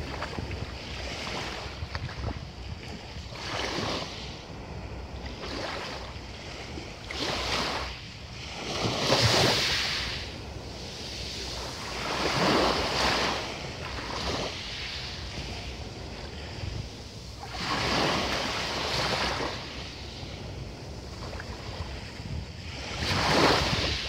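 Small sea waves breaking and washing up a fine-pebble shore every few seconds, each one a hissing surge that fades back, over a low steady rumble. The biggest washes come about nine seconds in and near the end.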